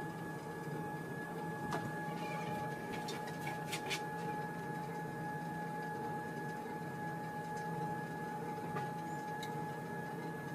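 Sole treadmill running, its motor giving a steady high whine over a low hum. A few sharp clicks come between about two and four seconds in.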